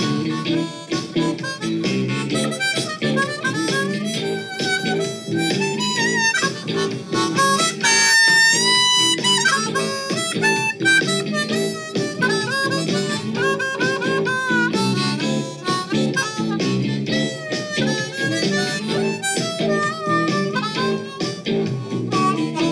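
Blues harmonica, cupped in the hands, playing a phrased melody of bent, wavering notes over a steady rhythmic blues backing with guitar. About eight seconds in it holds one long note for over a second.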